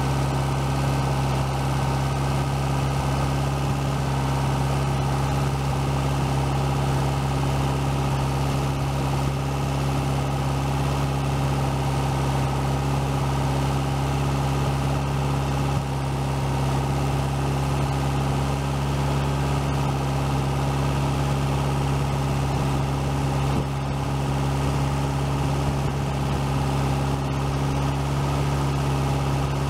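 Freshly rebuilt 1641 cc Volkswagen Type 1 air-cooled flat-four engine, run on a bench outside the car, running smoothly at a steady speed with an even, unchanging note.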